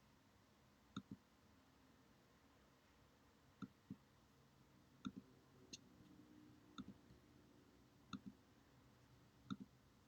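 Quiet, sharp clicks of a computer's pointing device being clicked, mostly in quick pairs, about six times over a near-silent room.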